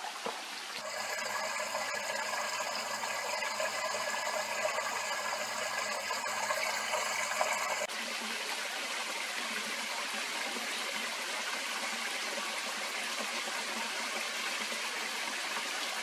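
Shallow mountain stream running over stones into a pool, a steady rush of water. Its tone shifts abruptly about a second in and again about halfway through.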